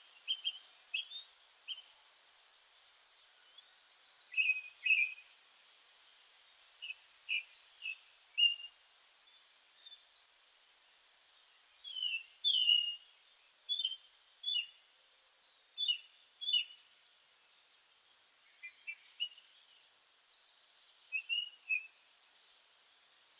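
Several forest birds calling and singing together. A thin, very high note repeats every couple of seconds, rapid trills come in now and then, and short chirps are scattered between them over a faint hiss.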